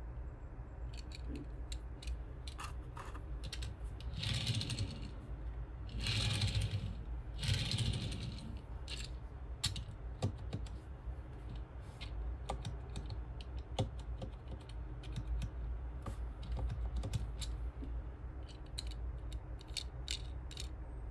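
Handling noise from a small die-cast Tomica toy car: scattered sharp clicks and taps of the metal car and its plastic wheels against fingers and the wooden tabletop. Between about four and eight seconds in come a few longer rushes of noise as the car is rolled along the table.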